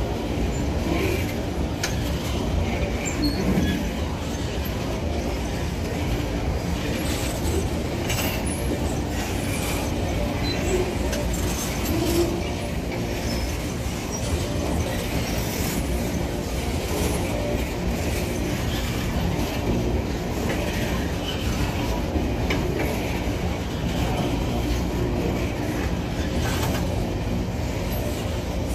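Empty open-top ore wagons of a freight train rolling past: a steady low rumble of steel wheels on rail, broken by frequent clanks and rattles from the wagons.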